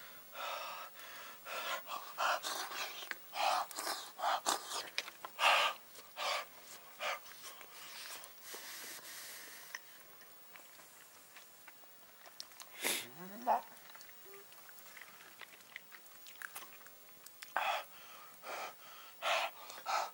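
Close-up slurping and chewing of hot salmon hot pot eaten with chopsticks, in many short, irregular slurps with pauses between them. About 13 seconds in there is a short rising hum.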